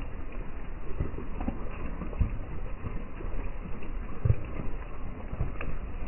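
Irregular, soft footsteps on a wet dirt forest track, heard as dull low thuds over a steady background hiss.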